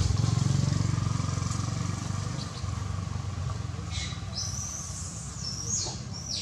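A motor vehicle's engine drone, loudest at first and fading away. About two thirds of the way in, several short high-pitched chirps that fall in pitch.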